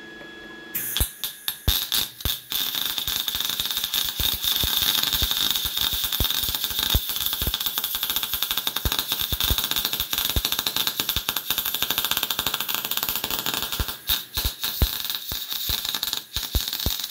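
MIG welding arc crackling steadily while a deep hole is filled with weld, stuttering in short starts about a second in and again briefly near the end.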